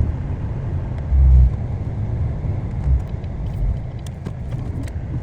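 Low road rumble of a moving vehicle heard from inside the cabin, with a louder low thump about a second in and a couple of smaller bumps later.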